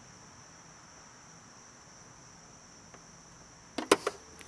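A faint, steady high-pitched whine, then near the end a quick cluster of sharp clicks and knocks as the camera is handled and swung.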